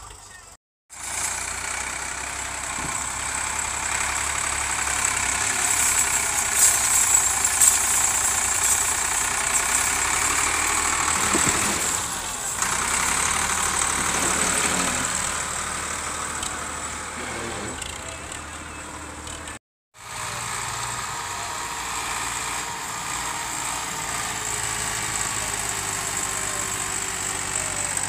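Massey Ferguson tractor's diesel engine running hard under heavy load, pulling a trolley heaped with soil, with brief drop-outs to silence just under a second in and about twenty seconds in.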